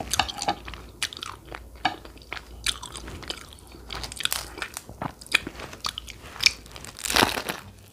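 Close-miked eating: chewing and wet mouth sounds of someone eating spaghetti, with irregular clicks and smacks and a louder crackly patch about seven seconds in.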